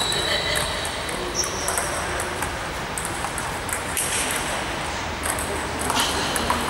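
Table tennis balls clicking off bats and tables: scattered clicks throughout from play at several tables, thickening into a rally after about four seconds.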